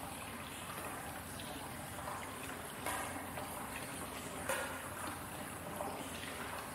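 Hot-spring water running steadily into the bath with a continuous trickling, broken by two louder splashes about three and four and a half seconds in.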